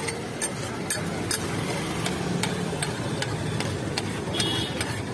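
Metal spatula scraping and clinking against a large flat griddle (tawa) as pav bhaji is stirred and spread, with sharp irregular clinks about twice a second over a steady low rumble.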